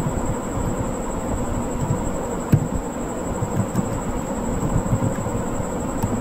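Steady low rumbling background noise with a thin high whine. Over it come a few faint clicks of computer keyboard keys being typed, the clearest about two and a half seconds in.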